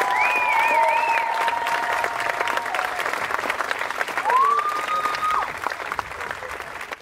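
Theatre audience applauding, a dense clatter of many hands clapping, with a few held high tones from the crowd over it. The clapping thins and grows quieter toward the end.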